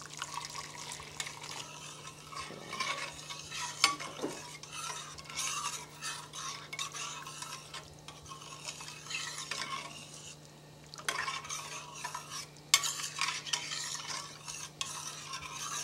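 A metal spoon stirring a curry broth in a stainless steel pot, scraping and clanking against the pot's sides, with a couple of sharper clinks. Water is poured into the pot at the start.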